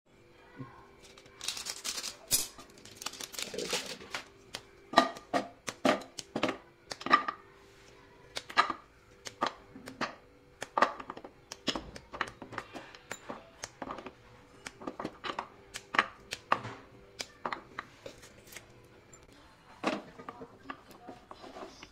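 Plastic wrapper crinkling in the first few seconds, then irregular sharp snaps and knocks as slabs of white compound chocolate are broken by hand and the pieces drop into a nonstick frying pan.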